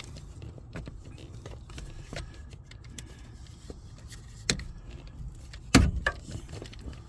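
Handling noise as a camera is picked up and repositioned: scattered small clicks and knocks, one clear knock about four and a half seconds in and a sharp thump near six seconds.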